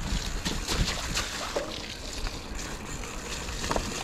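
Mountain bike ridden over a rough dirt trail: steady tyre and ground noise with a low rumble, broken by scattered clicks and rattles from the bike.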